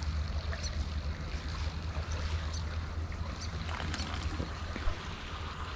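Creek water running steadily, with a low rumble underneath and a few faint ticks.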